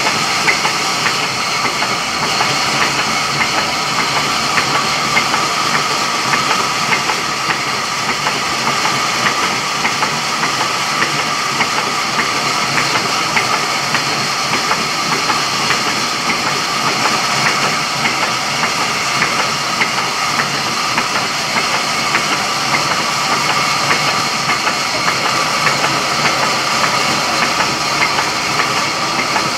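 Sawmill saw running and cutting wood, a loud, steady hiss that does not change.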